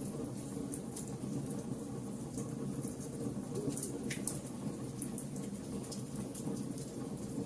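Fire crackling, with a steady low rumble under many scattered sharp pops and snaps.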